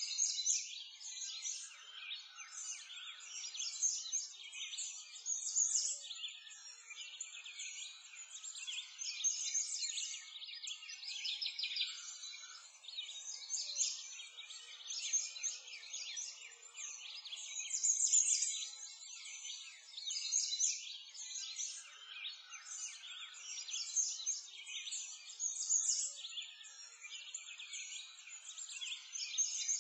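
Many small songbirds chirping and trilling at once, a dense, unbroken chorus of short high notes that swells and fades in waves.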